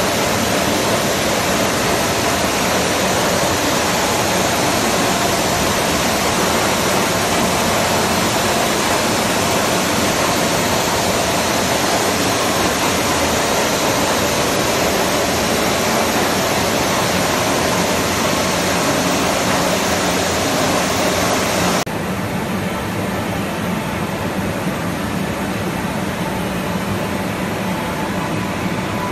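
Steady loud rushing hiss from a running CNC milling machine. About three-quarters of the way through, the hiss suddenly loses its sharp upper edge and carries on duller and a little quieter.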